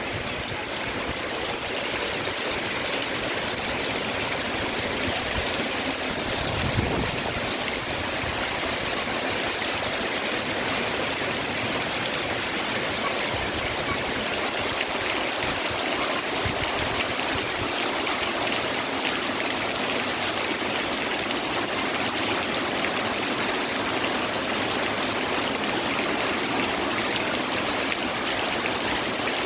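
Very heavy rain pouring down in a steady, dense, rumbling downpour, without strong wind.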